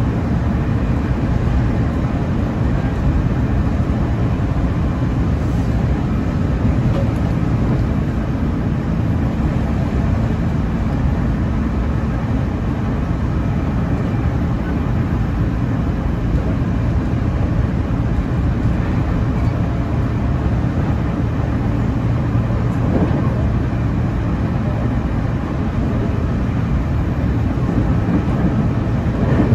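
Running sound of a JR 311-series electric multiple unit heard inside the passenger car while travelling at speed: a steady, even rumble of wheels on rail and running gear.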